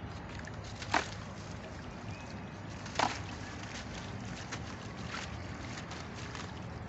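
Clumps of dried red sand crunching and crumbling, with two sharp crunches about a second in and three seconds in and a few fainter crackles later, over a steady low background noise.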